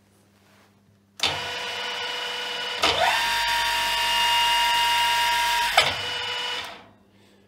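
CX-16 mill-drill's geared head and two-speed motor starting up about a second in with a steady multi-tone gear whine. About three seconds in it is switched to the faster motor speed, and the whine rises quickly to a higher pitch. It is switched off with a click near six seconds and spins down.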